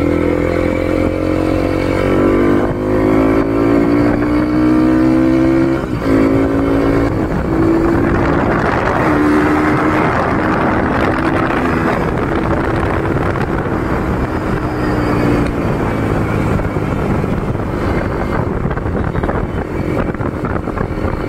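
Bajaj Pulsar NS200's single-cylinder engine through a custom exhaust, pulling under load while riding. Its note climbs in steps over the first six seconds as it accelerates through the gears, then holds steadier at cruising speed, with wind rushing over the microphone.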